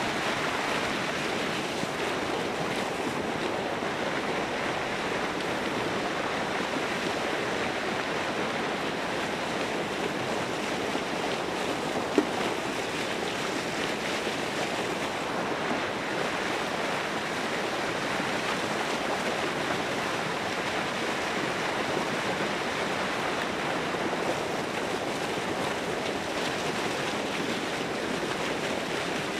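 Steady rushing, splashing water where the pond's open water churns white near the shore. There is a single sharp click about twelve seconds in.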